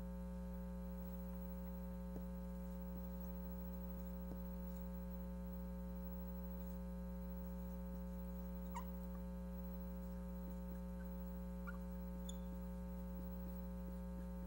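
Steady electrical mains hum, with a few faint squeaks of a dry-erase marker writing on a whiteboard in the second half.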